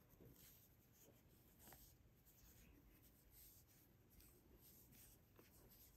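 Near silence: faint rustling of yarn being wound around the tines of a fork, with two faint ticks.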